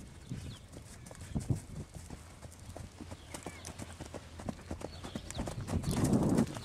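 Hoofbeats of young horses cantering and galloping loose over dirt ground: an irregular run of dull thuds, louder for a moment near the end as the horses pass close.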